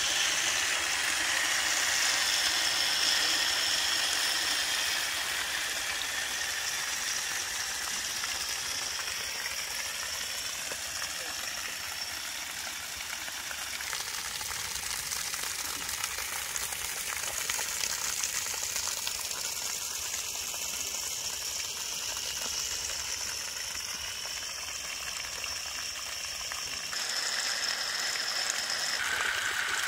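Steady hissing spray of a water jet splashing onto wet mud, pumped by a homemade 775 DC-motor pump built from PVC parts.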